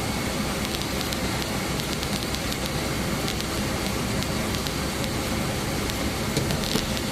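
Steady car cabin noise, a low rumble under an even hiss, with scattered faint ticks.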